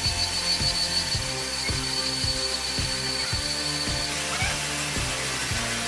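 Background music with a steady beat, over a power tool running with a steady high whine that stops about four seconds in.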